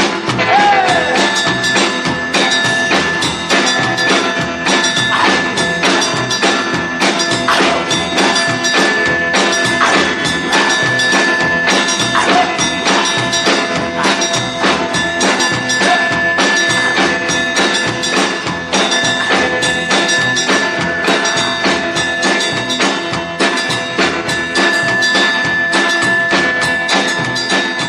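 Rock and roll record playing, with a busy steady beat and a tambourine.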